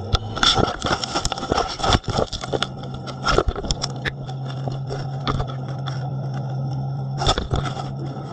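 A shark mouthing an underwater camera: irregular scraping, crunching and clicking of teeth and skin against the camera housing, heaviest in the first two seconds and again near the end, with a low steady hum in the middle.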